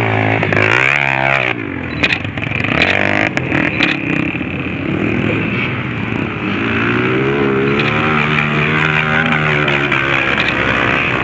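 Off-road dirt bike engines revving hard on a steep rocky hill climb, the pitch rising and falling as the throttle is worked, with a few sharp knocks about two to three seconds in.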